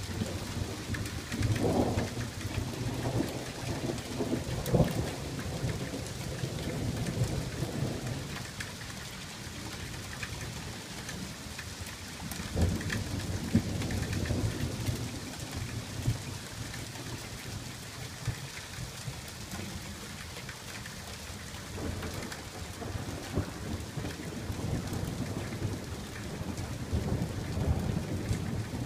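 Thunderstorm: steady rain falls while thunder rolls in long, low rumbles that swell and fade three times, in the first several seconds, around twelve seconds in, and near the end.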